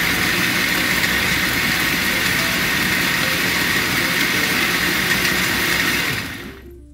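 Countertop blender running steadily as it blends cheesecake batter, its motor noise dying away near the end.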